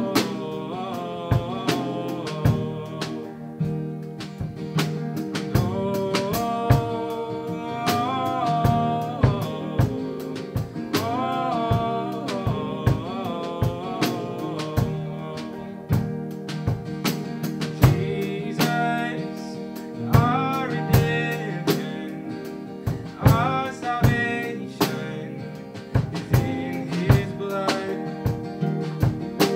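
Live worship band playing a song: keyboard, acoustic and electric guitars and a drum kit, with singing over them and regular drum hits.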